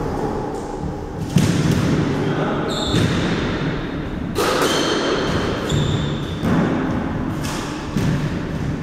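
Scattered thuds of a squash ball and footsteps on a hardwood squash court, with a few short shoe squeaks, echoing off the court's walls.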